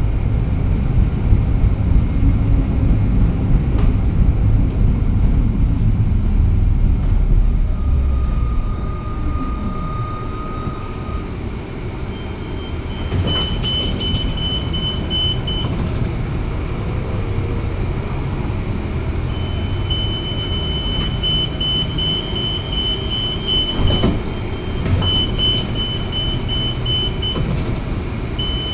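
Moderus Beta MF15 AC tram running along the track with a loud low rumble. About a third of the way in the rumble drops as a motor whine falls in pitch, the tram slowing. A short steady tone follows, then several runs of rapid high beeps.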